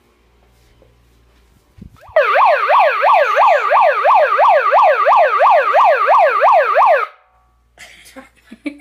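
Prank air horn gadget sounding a loud siren-like wail: a falling sweep repeated about four times a second for about five seconds, starting about two seconds in and cutting off suddenly.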